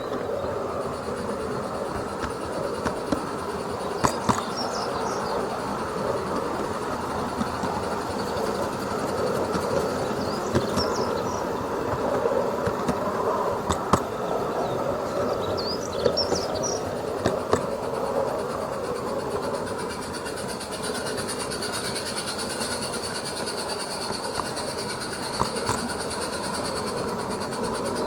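Garden-railway goods train running on 32 mm gauge track: a steady rolling rumble of small wheels, with scattered sharp clicks as the wagons pass over rail joints.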